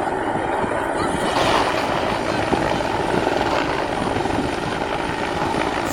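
Bell 412 helicopter running steadily, its rotor making a fast, even chop over the turbine noise.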